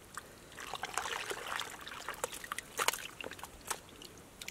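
Hands groping and sloshing through shallow muddy water, with many small splashes and drips; the sloshing swells for a couple of seconds about half a second in.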